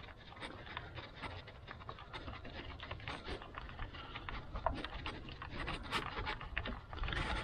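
Scattered light metallic clicks and ticks from a socket extension turning bolts out by hand on an engine's water outlet housing, with a dog panting.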